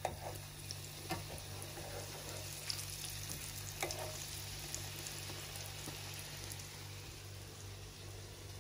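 Chebureki frying in hot oil: a steady sizzle with scattered crackles and pops, over a low steady hum.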